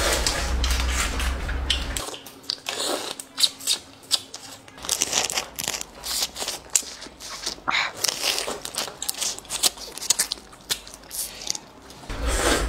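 Cooked crayfish being peeled and eaten by hand: a run of short crackles and clicks as the shells crack and tear, with sucking and chewing of the meat.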